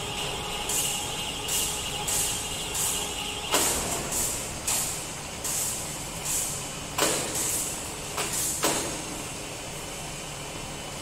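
A hand-held pneumatic tool on an air hose releases about a dozen short hisses of compressed air, each under half a second, a few of them opening with a sharp knock.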